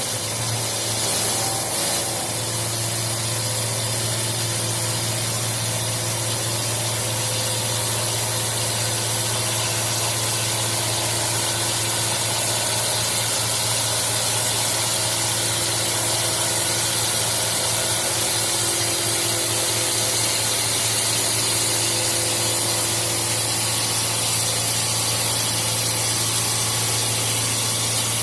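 CNC wood lathe running and turning wood: a steady motor hum under an even hiss of cutting.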